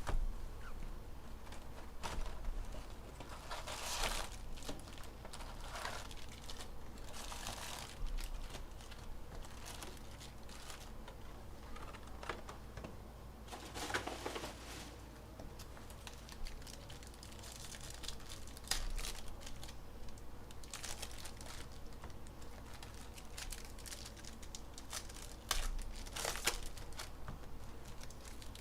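Plastic packaging of baseball card packs being crinkled and torn open by hand, in irregular rustling bursts with scattered small clicks of handling.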